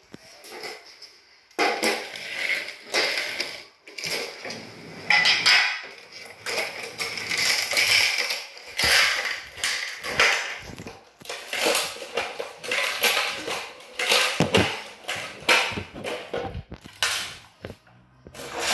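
Ice being cracked and broken out of plastic ice-cube trays: a long, irregular run of sharp cracks, crunches and clatters, with plastic rattling.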